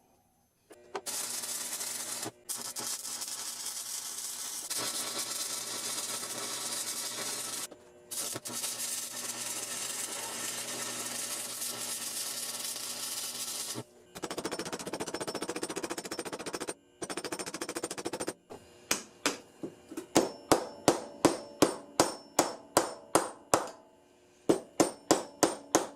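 Stick-welding arc crackling steadily in runs of several seconds, broken by short gaps where the arc stops. In the last third, a pointed steel chip hammer strikes the weld rapidly, about three metallic hits a second, knocking off slag, with a brief pause before the strikes resume.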